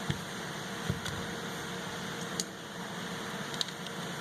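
A few short clicks and taps of hard plastic retail packaging being worked open to free a ratchet, over a steady background hum.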